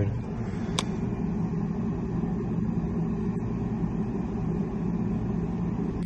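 Steady low hum and rumble inside the Mazda CX-9's cabin, with one sharp click about a second in.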